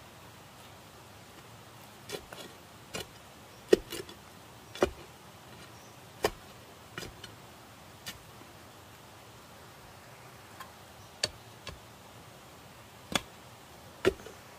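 Long iron bar jabbing into gravelly soil around the base of a bamboo post, tamping the backfill: a dozen or so sharp, irregular knocks, some much louder than others.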